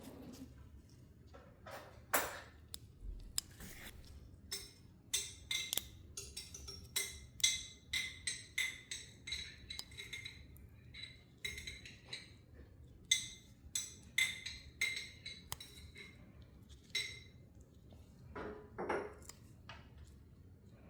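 A series of light metallic clinks and taps, irregular and roughly one or two a second, many with a short bright ring. A softer, duller rustle or scrape comes about two seconds in and again near the end.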